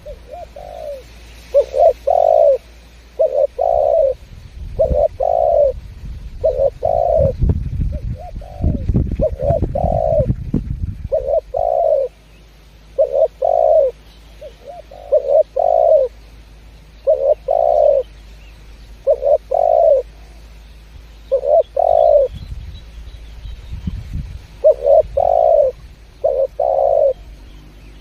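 Spotted dove (derkuku/tekukur) cooing loudly and repeatedly in its gacor song: short, low coo notes, often in pairs, about one a second. A low rumble sits under the song for a few seconds near the middle.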